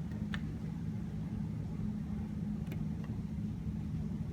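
Steady low electrical hum, with two faint clicks: one shortly after the start, one a little past the middle.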